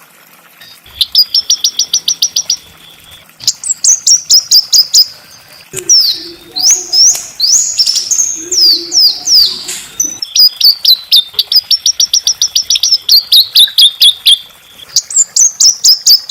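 A small songbird singing in loud, rough phrases. Fast runs of sharp repeated notes, about nine a second, alternate with downslurred whistles, with short pauses between phrases.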